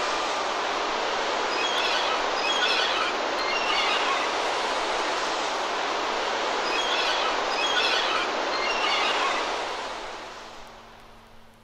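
Outro sound effect of a hardcore jungle track after the beat has stopped: a steady, noisy hiss-like wash with recurring clusters of high squealing chirps, fading away in the last couple of seconds.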